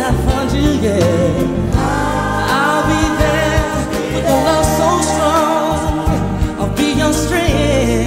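Music: a song with a singing voice, its held notes wavering with vibrato, over continuous instrumental accompaniment with a steady bass.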